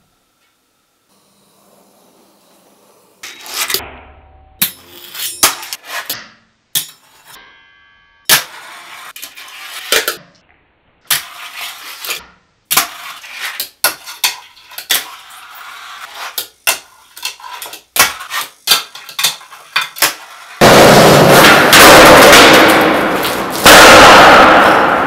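A fingerboard clacking and rolling on a tabletop and a wooden ramp: a quick run of sharp clicks and knocks with short rolls between them. About twenty seconds in, a much louder, steady rolling noise of a full-size skateboard on concrete takes over, with a hard clack near the end.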